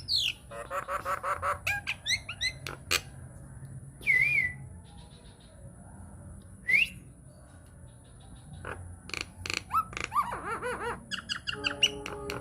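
Nias hill myna singing a varied song of loud whistles, sharp clicks and pitched chatter: a falling whistle at the start, a wavering whistle about four seconds in, a quick rising whistle near seven seconds, and rapid clicks and warbling toward the end.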